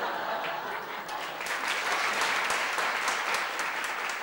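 Theatre audience applauding.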